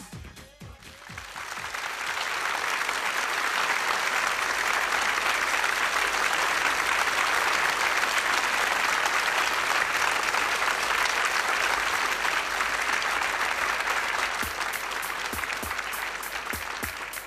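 A theatre audience applauding at length after a stage dance number: dense, steady clapping that swells in about a second after the music stops. Near the end the applause thins and a regular beat of sharp claps, a few per second, comes through.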